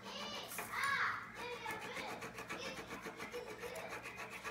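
Gel pen scribbling back and forth on a sheet of paper on a wooden table, a soft continuous rubbing scratch. A brief voice-like sound about a second in.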